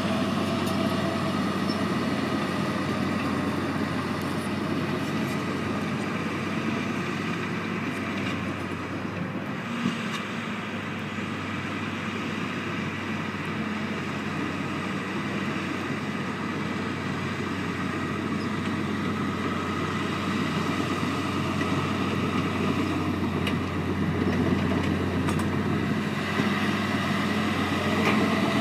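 Diesel crawler dozer spreading dirt fill, with a skid-steer loader working alongside: a steady engine drone that grows louder near the end as the dozer comes closer.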